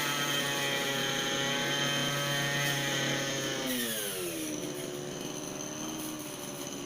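Petrol brush cutter (string trimmer) engine running at high revs, then throttle released about three and a half seconds in: the pitch falls over a second and settles at a steady idle.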